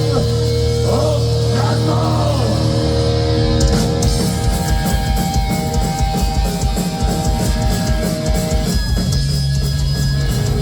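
Heavy metal band playing: distorted electric guitar holds a chord under bending, sliding lead notes, then the drums come in about three and a half seconds in with rapid bass-drum strikes under the guitars.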